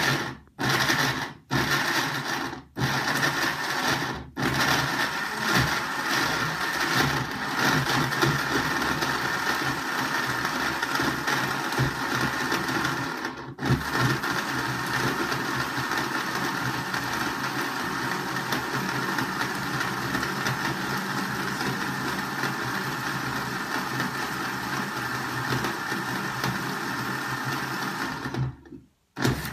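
Electric countertop blender grinding a tiger nut mixture. It cuts out and restarts four times in the first few seconds, then runs steadily, with one brief stop about halfway through, and stops just before the end.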